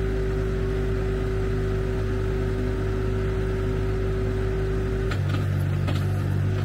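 Tractor engine running steadily while working a backhoe, with a steady whine that cuts off about five seconds in, where the engine note changes.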